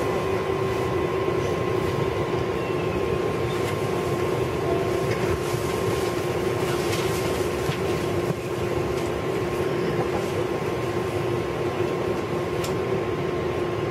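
An R188 New York City Subway car running at steady speed, heard from inside the car: a constant rumble of the wheels on the rails under a steady hum, with a few faint clicks.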